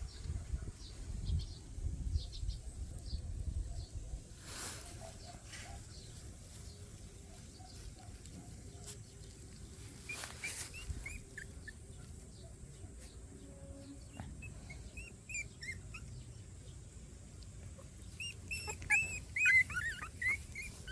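Young puppies whimpering and squeaking in short, high-pitched, rising-and-falling cries: a few faint ones at first, then a loud flurry near the end. Scattered soft knocks and rustling come in the first few seconds.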